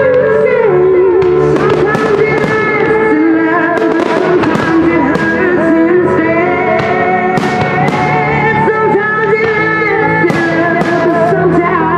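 Loud music with aerial firework shells bursting and crackling over it, many sharp bangs throughout.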